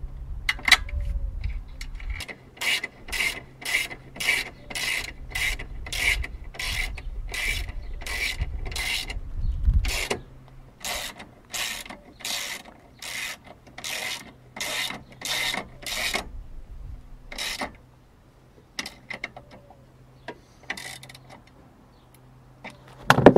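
Hand socket ratchet clicking in short, evenly repeated back-strokes, about two a second, as it tightens the oil-cooler bracket bolts. The strokes stop about two-thirds of the way through, leaving a few scattered clicks.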